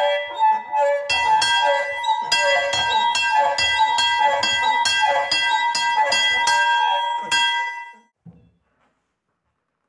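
Small bronze bell swung by hand in a wooden frame, its clapper striking about two to three times a second with a bright, ringing tone. The ringing cuts off abruptly about 8 seconds in, followed by a faint knock.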